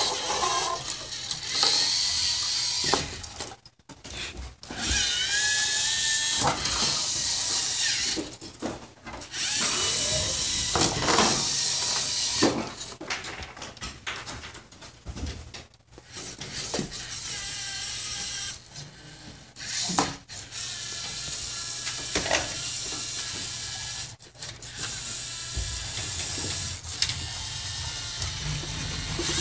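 LEGO Mindstorms competition robot's electric motors and plastic gear trains whirring in stretches of a few seconds, stopping and starting again as it drives and works its attachments, with the odd sharp click.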